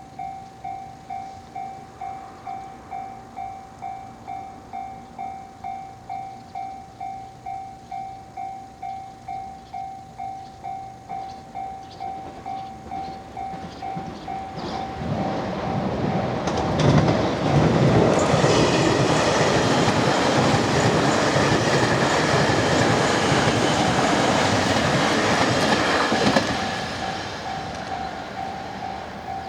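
Japanese railway level-crossing warning bell ringing steadily, about two strokes a second. A train comes up and passes loudly through the middle for about ten seconds, then dies away near the end while the bell keeps ringing.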